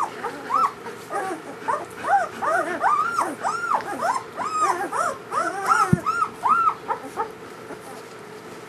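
A litter of German Shepherd puppies whimpering and squeaking: many short, overlapping cries that rise and fall in pitch, dying away about seven seconds in.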